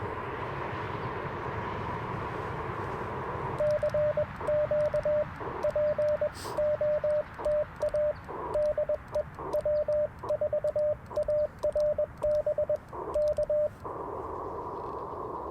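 Icom IC-705 transceiver: band hiss through its narrow CW filter, then about ten seconds of hand-sent Morse code heard as a single keyed sidetone. The receiver hiss drops out while the tone is keyed, as it does when the radio is transmitting, and comes back near the end. Faint clicks of the paddle key go with the keying.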